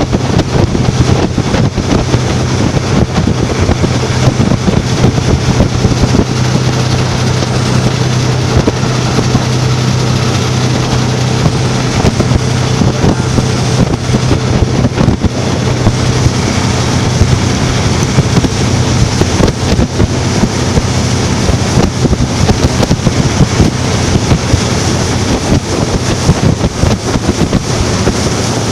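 Motorboat engine running steadily while the boat is underway, a constant hum under wind buffeting the microphone and the rush of water.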